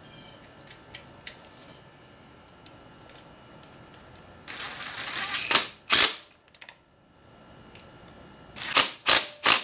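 A socket ratchet clicking as the two nuts holding the EGR valve are run down and tightened. A burst of fast ratcheting ends in two loud clicks, and three more sharp clicks come near the end.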